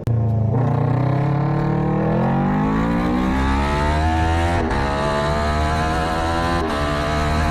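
Racing motorcycle engine under hard acceleration, its pitch climbing steadily. The climb breaks briefly twice, about four and a half and six and a half seconds in, as it shifts up through the gears.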